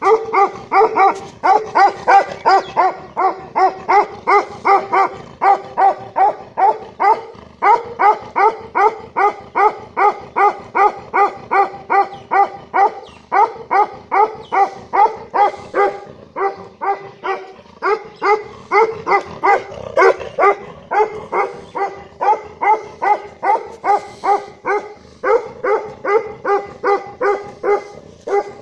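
A Bakarwal dog, a large mastiff-type guard breed, barking aggressively and almost without pause. The barks come at about two to three a second, with only brief breaks.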